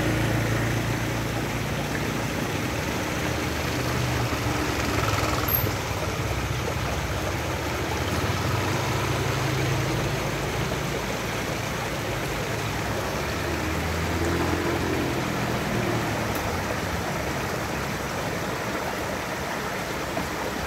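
Shallow stream rushing and splashing over rocks and a small weir: a steady rush of water, with a low hum that comes and goes underneath.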